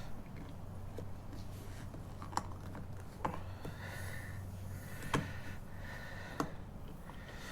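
A few separate sharp clicks of pliers working at a hex-head screw stuck in a motorcycle's rear tire, over a steady low hum.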